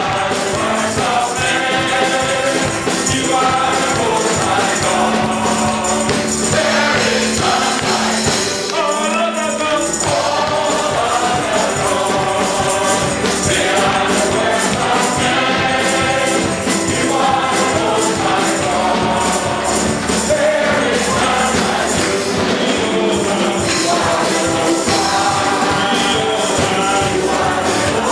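Men's gospel choir singing an upbeat praise song in harmony over a live band with keyboard, guitar and a steady jingling percussion beat. The bass drops out briefly about nine seconds in, then the full band returns.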